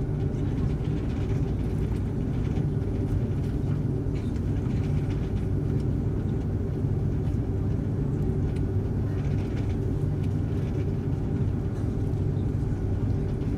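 Steady cabin rumble of an Airbus A330-200 taxiing, heard from a window seat over the wing: the jet engines at low power make an even low hum, with a few faint clicks.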